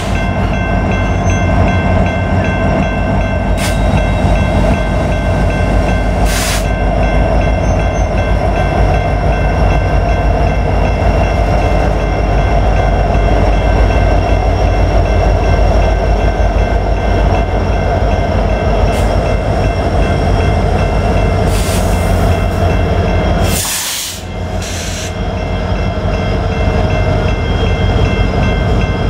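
Diesel freight locomotives running past at the rear of a train, with a heavy engine rumble and a steady high whine over it, and a few sharp knocks. The noise drops briefly about 24 seconds in, then the rumble goes on as the train moves away.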